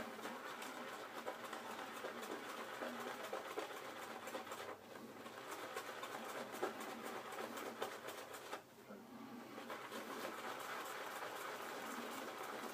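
Badger-hair shaving brush being worked over a puck of shaving soap to load it, a steady wet, crackling scrubbing of thick lather, with two short pauses, about five seconds in and near nine seconds.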